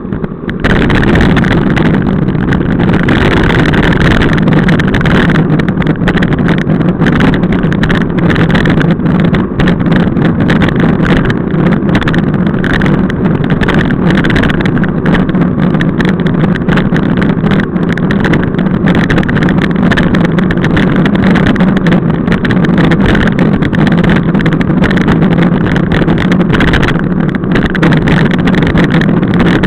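Wind rushing over a bike-mounted camera's microphone while riding at speed, mixed with road and tyre rumble and frame vibration, a loud steady noise.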